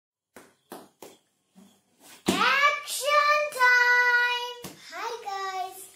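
A young girl's voice calling out loud in long, drawn-out sung notes, after a few soft taps.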